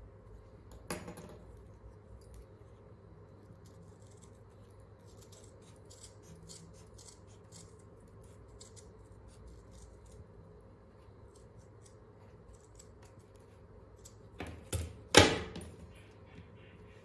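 Scissors snipping through thin felt in a run of small, quiet cuts. A knock comes about a second in. Near the end the scissors are set down on the table with three knocks, the last one the loudest.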